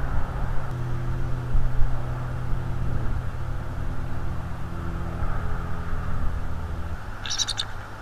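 A steady engine hum with a low rumble, which cuts off about seven seconds in. Near the end comes a short, high, chittering call of a bald eagle.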